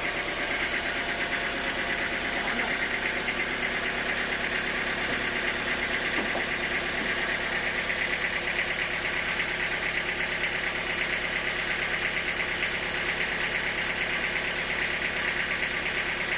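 Engine running steadily at an even speed, with a fast regular pulsing.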